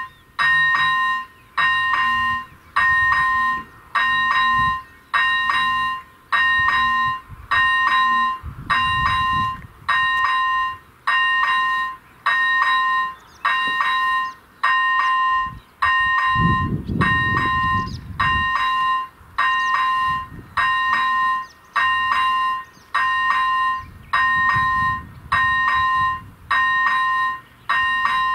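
AŽD ZV-01 electric level-crossing bell ringing in even pulses, about one a second, each a bright ringing tone with several overtones. It is the crossing's warning for an approaching train.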